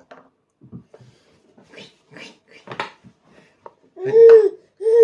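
A baby's loud, high-pitched squeal about four seconds in, rising and falling, followed by another starting near the end. Only a few faint short sounds come before it.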